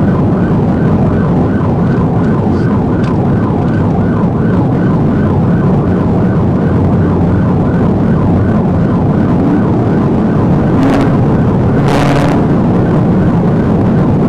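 Police car siren in yelp mode, about three quick sweeps a second, heard from inside the pursuing patrol car over steady engine and road noise. The siren fades after about eight seconds, and two short bursts of hiss come near the end.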